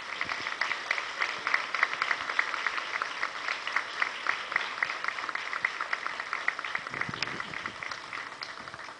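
Audience applauding, a dense run of hand claps that tails off over the last couple of seconds.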